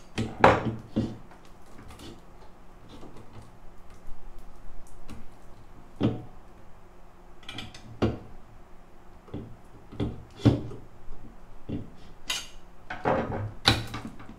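Screwdriver clicking, scraping and clinking against the finned aluminium casing and wiring terminals of a Bose 5-channel car amplifier as its wires are worked loose, in irregular sharp metal knocks over a faint steady low hum.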